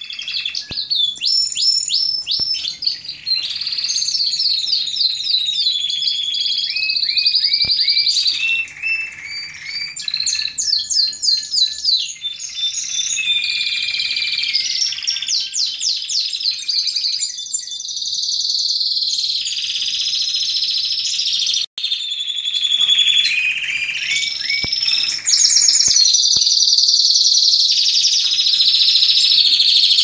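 Several year-old Spanish Timbrado canaries singing against each other in a song duel, their songs overlapping without pause. The song is fast trills, runs of repeated falling notes and held whistles.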